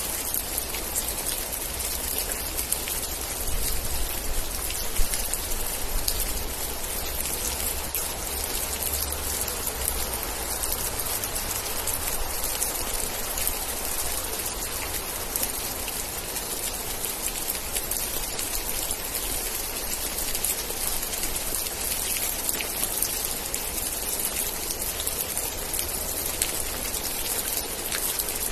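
Steady rain falling, a dense hiss dotted with the ticks of single drops, with a low rumble underneath during the first ten seconds or so and one sharper drop hit about five seconds in.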